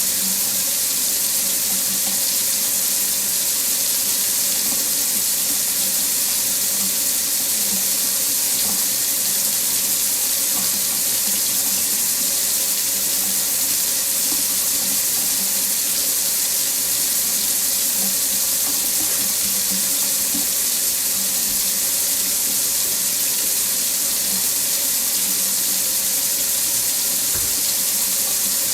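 Faucet running in a steady stream into a sink, an even, unbroken hiss of water.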